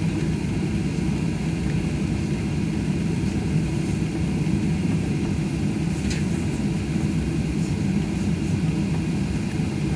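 Steady cabin noise of a Boeing 737-800 rolling on the ground: an even low rumble and hum of its CFM56 jet engines and airframe, heard from a window seat over the wing. A brief light click about six seconds in.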